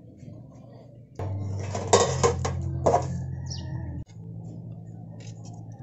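Wire-mesh skimmers clinking and scraping against a large metal stockpot as boiled beef is lifted out of the broth, with several sharp clinks between about two and three seconds in, over a steady low hum.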